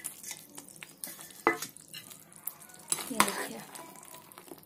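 A metal spoon stirring pakodas into thick kadhi in a metal kadhai, scraping and knocking against the pot, with two sharp clinks, the louder one about three seconds in.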